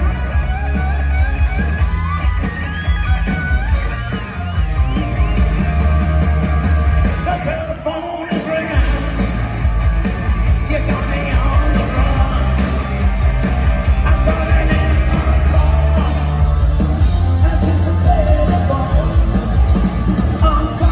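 Live hard rock band playing loud, heard from among the audience: electric guitar bends over heavy drums and bass, with a lead singer's voice. The bass and drums drop out for about a second near the middle, then the full band comes back in.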